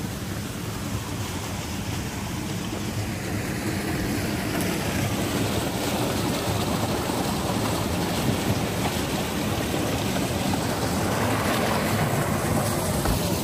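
Steady rushing noise with no clear pattern, a little louder after the first few seconds.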